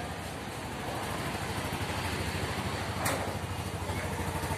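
Bajaj RE auto-rickshaw engine idling with an even pulse, slowly growing a little louder, with one sharp click about three seconds in.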